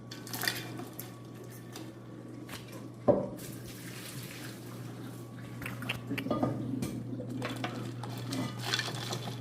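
Kitchen handling sounds: utensils and a pot clattering, with one sharp knock about three seconds in, and water splashing, over a steady low hum.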